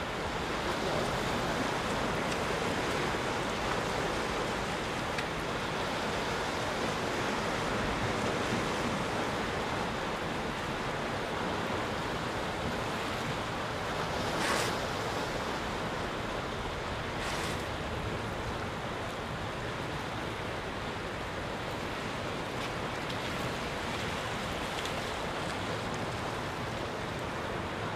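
Sea surf washing against a rocky shore, a steady rushing hiss. Two brief sharp sounds about three seconds apart stand out midway, the first the loudest.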